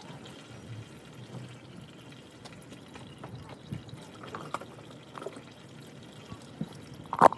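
Used engine oil pouring and trickling from a 2005 Toyota Tacoma's oil-pan drain hole into a catch pan, a steady faint stream with a few small ticks and a short sharp knock near the end.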